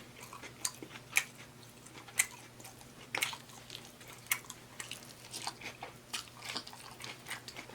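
Close-miked chewing and biting of a taco salad, with irregular soft crunches and mouth clicks from the baked tortilla shell and lettuce.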